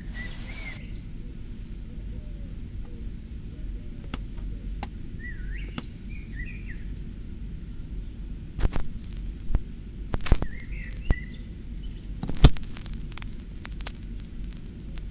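Handling a record turntable: a run of sharp clicks and knocks in the second half as the tonearm is cued and the lid is worked, the sharpest near the end. Birds chirp now and then over a steady low hum.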